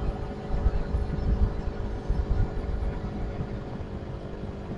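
Motorcycle engine running at a steady speed while riding, with irregular low rumbling buffets on the microphone, strongest in the first half.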